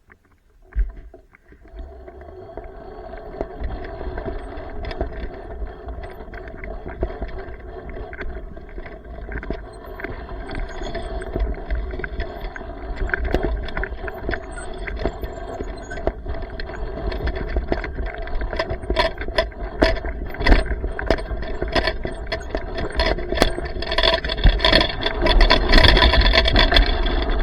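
Electric minibike's motor whining steadily while it is ridden, with a low rumble underneath and frequent rattles and knocks from the bike going over rough ground, growing louder and busier in the second half.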